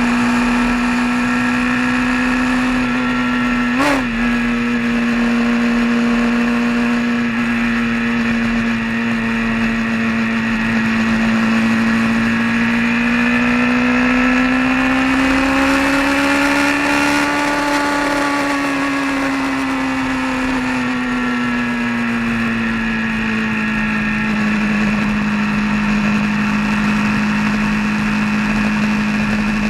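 Vehicle engine running at a steady cruising pitch on the road, with a brief jolt about four seconds in. The revs rise gradually around the middle and ease back to the same steady note.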